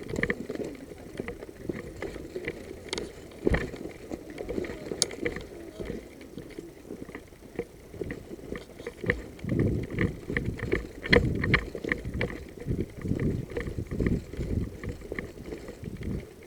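Footsteps and the rustle of clothing and gear of someone walking through brush, in uneven thumps and scuffs that grow heavier in the second half, with a few sharp snaps or clicks.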